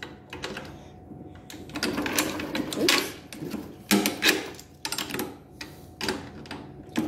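Lawn mower's black tubular handle sections being worked together by hand: an irregular run of clicks, knocks and scraping rattles as the tubes and their fittings are pushed into place.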